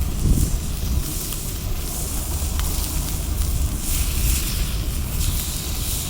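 Wind rumbling on the microphone over the steady hiss of a campfire, with an occasional faint crackle.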